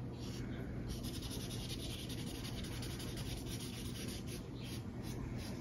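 Felt-tip art marker rubbing on paper in quick repeated strokes: a soft, steady scratching as the marker colours in.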